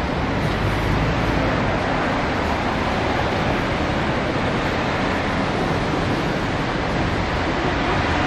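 Steady rush of urban traffic noise, with wind rumbling on the microphone.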